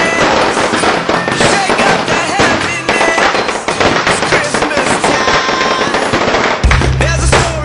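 Dense, continuous crackle of firecrackers and fireworks going off in rapid, overlapping bangs, with music and voices underneath. Near the end, music with a heavy bass comes in loudly.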